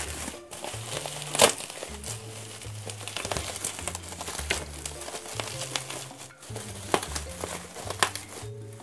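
Plastic bubble wrap crinkling and rustling as hands pick at and pull open the wrapping. Sharp snaps stand out, the loudest about a second and a half in and two more near the end. Background music plays underneath.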